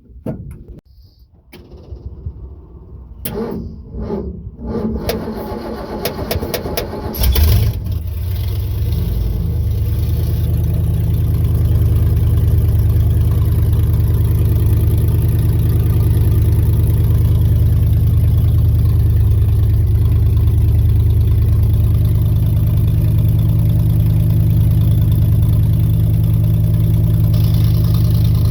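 Ford small-block 351 Windsor V8 in a 1961 F100 pickup cranking with uneven bursts for several seconds, catching about seven seconds in, then running steadily.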